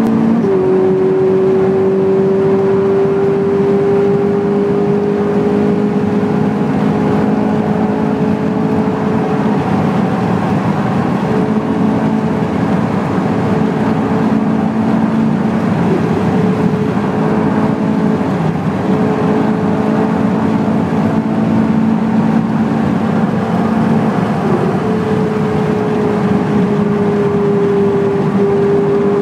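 Ferrari 458 Italia's V8 engine cruising at a steady highway speed, heard from inside the cabin over tyre and road noise. The engine gives an even drone whose pitch drifts slightly up and down.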